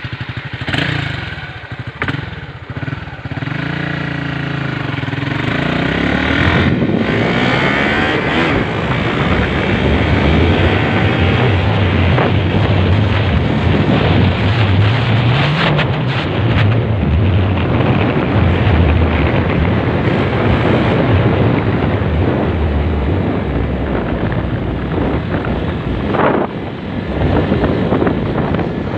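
Honda Sonic 150 motorcycle's single-cylinder four-stroke engine pulling away, its pitch rising over the first few seconds, then running steadily at riding speed with wind rushing over the microphone.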